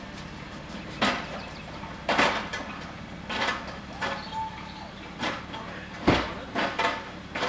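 Irregular knocks, bangs and scrapes, about eight of them spread over several seconds, over a low steady hum.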